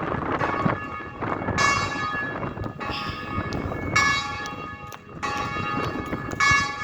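Bells ringing, several strikes a second or two apart, each leaving a ringing tone, over gusty wind noise.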